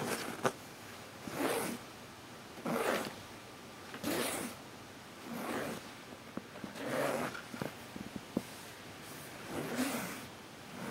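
Slow, regular breathing close to the microphone: one noisy breath about every one and a half seconds, with a few faint clicks in between.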